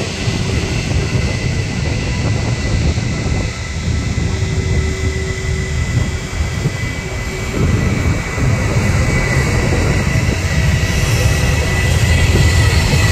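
Boeing 737 airliner's jet engines during the landing rollout just after touchdown: a steady low rumble with a thin whine over it, growing louder in the last few seconds as the aircraft rolls toward the microphone.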